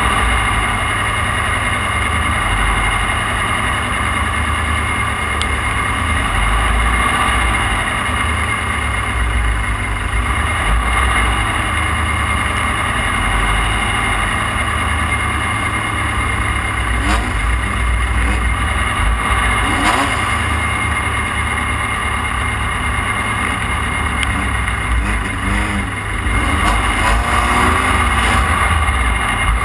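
Off-road race car's engine running hard, heard onboard over a constant low rumble, its pitch rising and falling with the throttle. It gets louder near the end.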